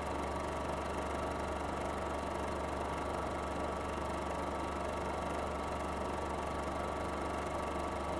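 Film projector running: a steady mechanical whir with a constant low hum.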